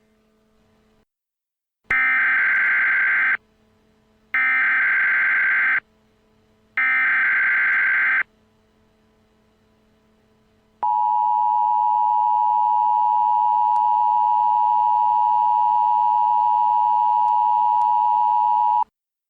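Emergency Alert System tones: three bursts of SAME header data, each about a second and a half, then the steady two-tone EAS attention signal held for about eight seconds, the signal that opens a new emergency alert.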